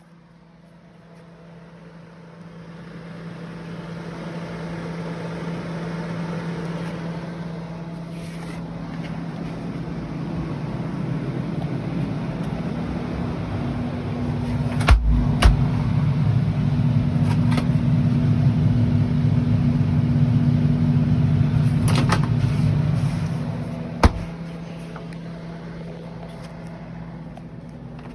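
Micro Matic keg refrigerator's refrigeration unit running with a steady hum that grows louder partway through and drops back near the end. A few sharp clicks or knocks cut in over it.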